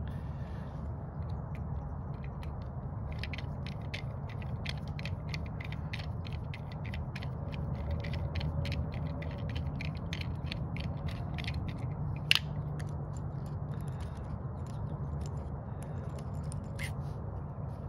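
Rapid, irregular small clicks and ticks of a screwdriver working the long screws that hold a small two-stroke carburetor together, with one sharper click about twelve seconds in, over a steady low hum.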